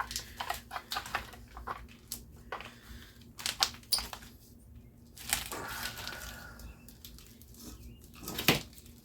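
Scattered metal clinks and knocks of tools working on a Tecumseh small engine as its flywheel is being worked loose, with one louder knock near the end.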